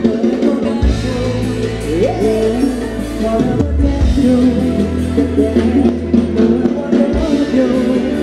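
Live Thai ramwong dance-band music, loud, with a singer over a held bass line that changes note every few seconds.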